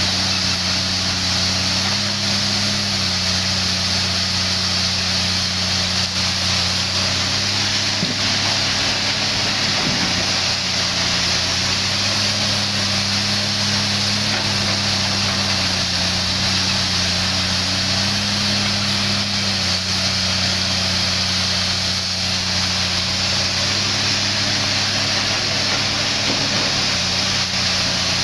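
Komatsu PC300 hydraulic excavator's diesel engine running under working load as it digs and loads coal, its note rising a little and falling back every several seconds over a steady hiss.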